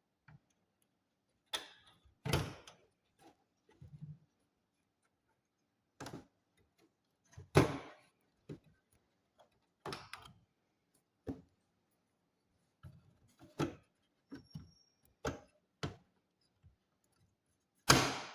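Irregular clicks and knocks of hard plastic and metal parts being handled during work on a Lenovo all-in-one PC, with short gaps between them.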